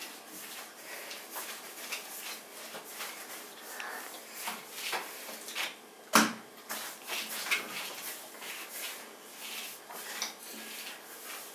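Small taps, clicks and rustles of hands handling soft bread dough at a table, with one sharp knock about six seconds in.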